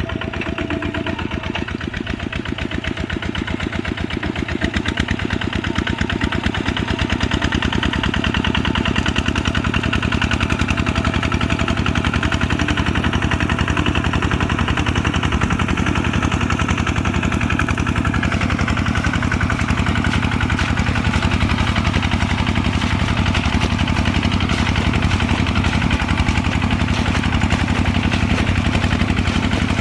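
Kubota RT140's single-cylinder diesel engine running steadily with a fast, even firing rhythm, growing a little louder over the first several seconds, while it plows a wet rice paddy.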